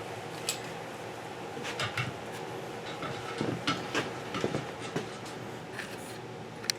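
Scattered light clicks and knocks of metal parts and tools being handled while swingarm parts are fitted, about eight or nine short sharp ticks spread out, the sharpest near the end.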